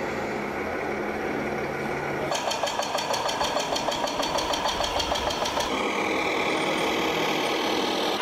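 Engine sound of a radio-controlled model truck: a steady hum, then a fast even knocking of about six beats a second for some three seconds, settling into steady running.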